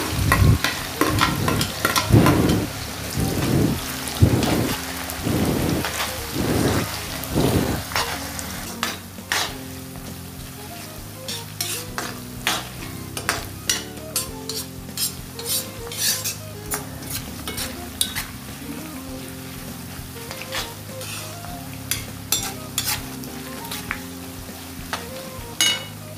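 Sliced onions deep-frying in hot oil in a wok, sizzling loudly as they go in. For the first eight seconds a perforated metal skimmer stirs them in strokes about once a second; after that the sizzle goes on more quietly with scattered crackles.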